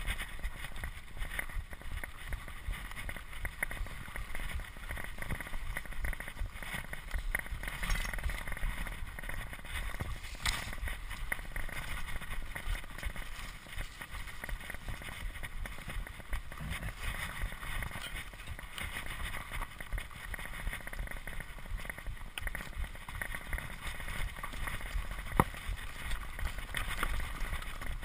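Mountain bike riding over a bumpy dirt and leaf-covered forest trail: tyre noise on the ground, the chain and frame rattling over bumps, and wind rumbling on the microphone. A single sharp knock sounds near the end.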